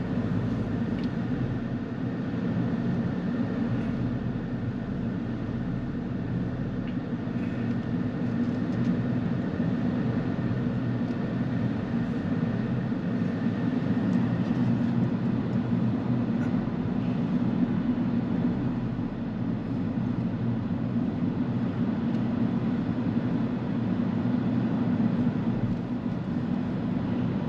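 Car driving, heard from inside the cabin: a steady low rumble of engine and tyre noise that holds level throughout.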